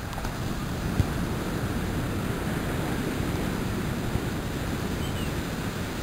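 Steady noise of surf breaking on the beach, with wind buffeting the microphone, and one sharp knock about a second in.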